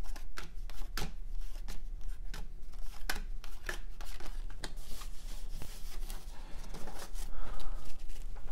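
A stack of 1993 Topps cardboard baseball cards being flipped through by hand. Single cards are slid off the stack and flicked onto piles on a table, in a run of sharp, irregular clicks and rustles at about one or two a second.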